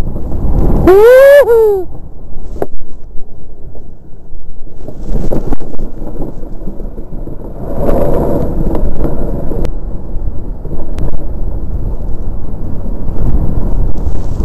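Steady low rumble of a DN iceboat's runners skimming over black ice, mixed with wind buffeting the microphone as the boat sails at speed. About a second in, a short pitched whistling tone rises and then falls.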